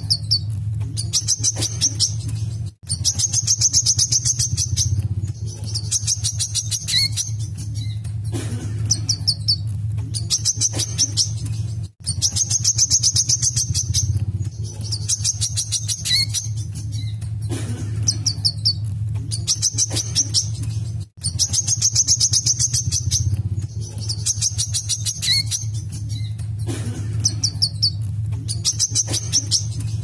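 Wiceh sunbird singing in full voice: repeated bursts of a fast, high, rattling trill with short chirps between, the song pattern repeating about every nine seconds after a brief dropout. A steady low hum runs underneath.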